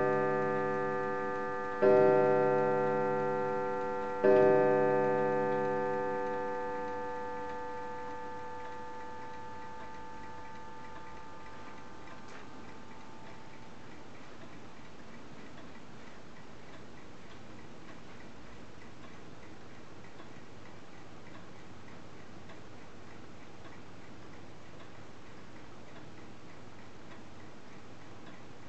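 Kienzle pendulum wall clock striking five: the tail of one stroke, then its last two strokes about two and a half seconds apart, each a rich ringing tone that fades slowly. After that the clock ticks steadily.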